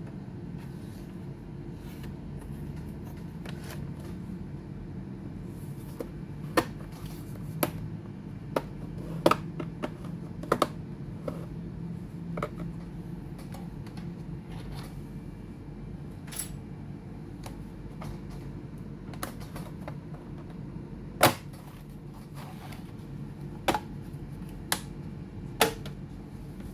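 Scattered sharp clicks and taps, about a dozen at irregular spacing, the loudest about 21 seconds in, over a steady low hum: tools and small parts handled while a laptop is taken apart.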